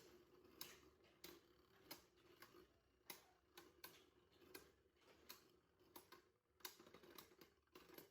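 Faint, irregular light clicks, about one or two a second, from plastic Beyblade Burst tops and launcher parts being handled.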